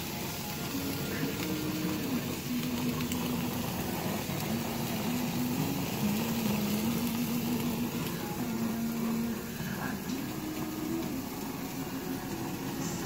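Steady hiss of ribeye steaks cooking over the burners of a gas grill, with a low, slow melody of held notes running through it.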